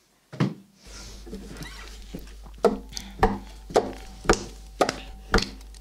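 Hand claps in a steady beat, about two a second, starting a little before halfway, over a low steady hum that comes in about a second in.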